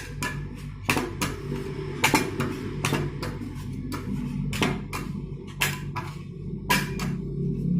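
Metal spatulas clinking and scraping on the cold steel plate of a rolled ice cream machine, about a dozen irregular sharp knocks, over a steady low hum.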